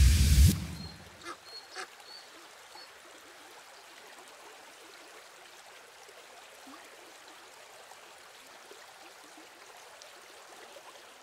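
A loud rumbling noise cuts off suddenly about half a second in. It gives way to faint outdoor ambience of a trickling stream, with a few short high chirps and soft clicks in the first few seconds.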